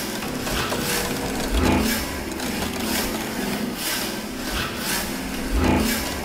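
Experimental film soundtrack of rhythmic scraping and rubbing strokes, roughly one or two a second, with a deep thud twice, about four seconds apart.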